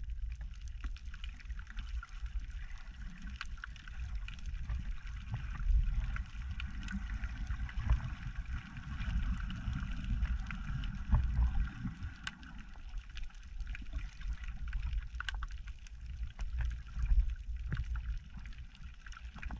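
Water surging and sloshing in choppy shallows, heard underwater through a camera housing as a muffled, uneven low rumble, with scattered faint clicks.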